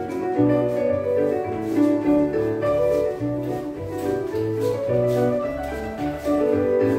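Scottish country dance music playing a jig, a lilting tune over sustained bass notes that change every half second or so.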